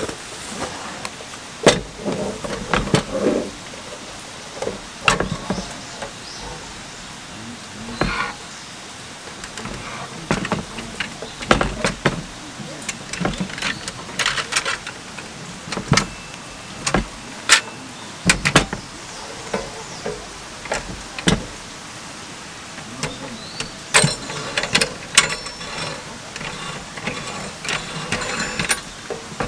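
Handling noise of a Maxbutane Fold Range folding portable gas stove being drawn from its fabric carry bag and unfolded: irregular metal clicks and knocks as its folding panels and pot supports are swung out and snap into place.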